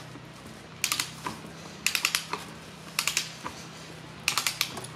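Torque wrench ratcheting on a wheel lug nut: four short runs of rapid clicks, about one a second, over a steady low hum.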